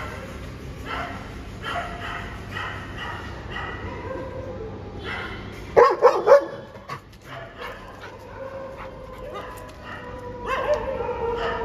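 Dogs barking and yipping in short repeated calls, with a sudden loud cluster of barks about six seconds in and a long drawn-out whine near the end.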